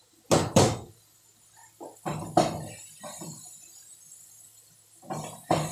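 Kitchen utensils and cookware being handled: two sharp knocks at the start, then a few lighter clinks and knocks with quiet gaps between.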